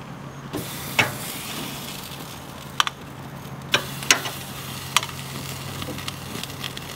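Raw steaks sizzling as they are laid on a very hot grill grate, with several sharp clicks of the metal tongs against the grate. The sizzle starts about half a second in and keeps going.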